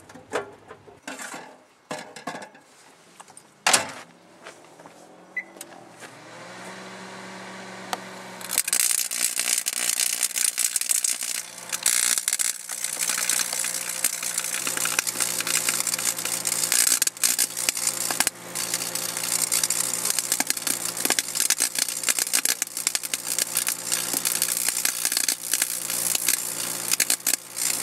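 A few clicks and knocks, then a microwave oven starts with a steady hum about six seconds in. A couple of seconds later, loud dense crackling and sizzling sets in over the hum and keeps going: the Edwards fire alarm pull station inside is being cooked and is burning.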